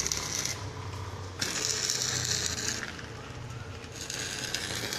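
Corded electric drill boring into a concrete floor, run in three short bursts of about a second each with pauses between.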